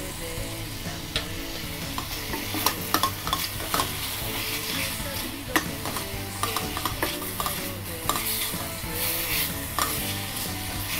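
Pork chops and chopped garlic sizzling as they fry in a stainless steel pot. A spatula scrapes and knocks against the pot as the meat is stirred and turned, giving scattered sharp clicks over the steady hiss.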